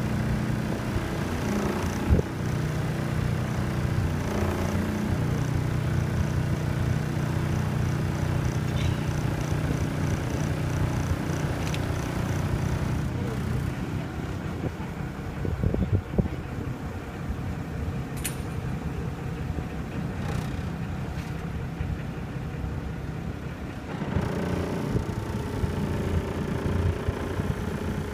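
Tour boat's engine running steadily at low speed: a low hum with steady tones, somewhat weaker through the middle and stronger again near the end.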